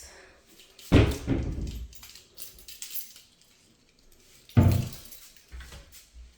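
Two loud knocks about three and a half seconds apart, each with a short ringing tail, and a few lighter knocks near the end.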